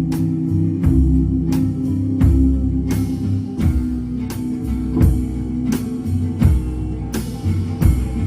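Live band playing an instrumental passage between sung verses: plucked guitar over sustained low bass notes, with a steady beat of percussion strokes about twice a second.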